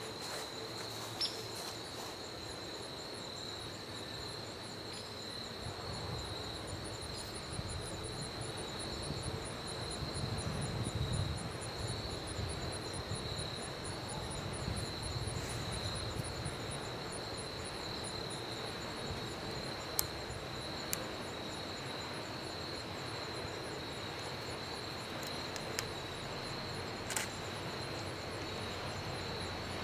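Insects trilling steadily in the woods, a high unbroken chorus with a fainter, evenly pulsing chirp above it. A low distant rumble swells and fades in the middle, with a few faint ticks later on.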